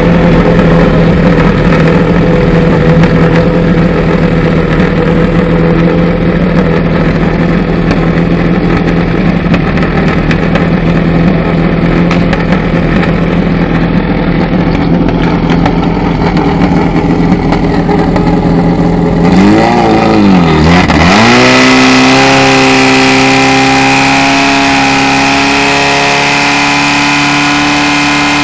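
Portable fire pump's engine running loud and steady. About two-thirds of the way through it dips briefly, then revs up to a higher pitch and holds there at full throttle while the pump drives water out through the hoses.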